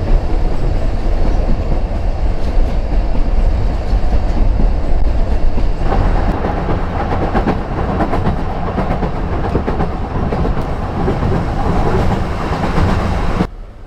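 Narrow-gauge Isle of Man Steam Railway train running along the line, heard from on board: a loud steady rumble with wheel clatter, cutting off abruptly near the end.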